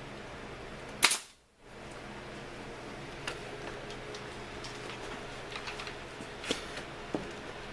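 Brad nailer firing once into the wood rack about a second in, a single sharp crack, followed by a few light clicks.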